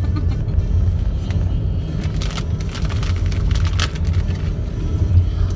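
Steady low rumble of road and engine noise inside the cabin of a moving car, with a few faint clicks near the middle.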